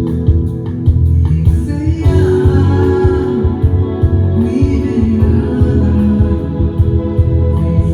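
A small band playing a Christian worship song: a lead vocal sung over keyboard and guitar, with a steady, full low end.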